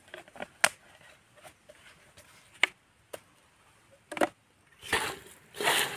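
Hand-handling noises at a clay cooking pot: a few sharp clicks and taps spread out, then two short rustling scrapes near the end.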